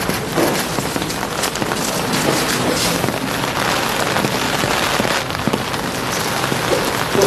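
Steady rain falling, a continuous crackling patter.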